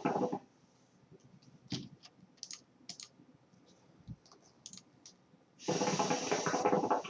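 Water bubbling in the base of a KM Tri-Metal hookah as smoke is drawn through the hose. The tail of one draw dies away in the first half second, then comes a quiet stretch with a few faint clicks, then another draw of about two seconds near the end.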